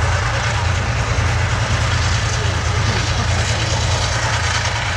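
Armoured military vehicles running their engines, a steady, loud sound with no let-up.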